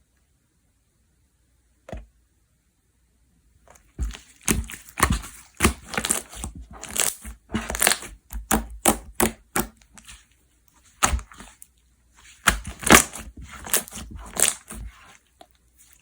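Slime being squeezed and pressed by hand, giving rapid runs of sharp crackling pops and clicks, with a short pause in between.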